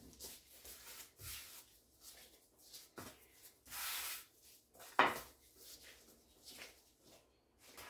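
Gloved hands kneading and pressing soft dough on a floured wooden board, with soft rubbing and patting. Two sharp knocks on the board, about three and five seconds in, as the dough and a kitchen knife are put down, and a brief rustling swish just before four seconds.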